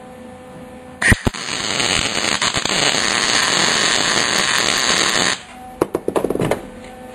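Lincoln MIG welder welding steel: the arc strikes with a sharp crack about a second in, then runs as a steady crackling hiss for about four seconds and cuts off suddenly. A few short clicks follow.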